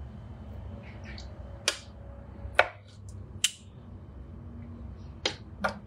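A wooden spatula knocking against the dishes while thick spinach curry is spooned from a pot into a serving bowl: about five short, sharp knocks at uneven intervals.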